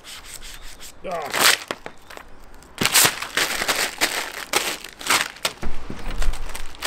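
Paper backing sheet from a vinyl windscreen strip crackling and crinkling as it is crumpled into a ball by hand, in many quick sharp crinkles from about three seconds in.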